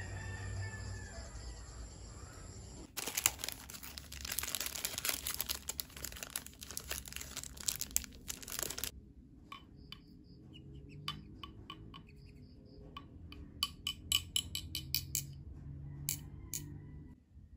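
Clear plastic sleeves on paintbrushes crinkling as they are handled, a dense crackling for several seconds, followed by scattered light clicks and taps.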